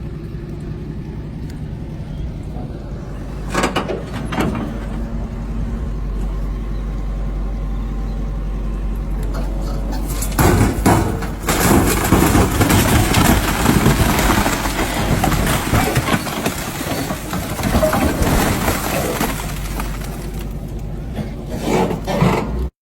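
A 30-tonne excavator's diesel engine running steadily, with a few knocks a few seconds in. About halfway through a loud, rough rattling and scraping sets in as the bucket works soil into the hole over the coffin, and the sound cuts off suddenly near the end.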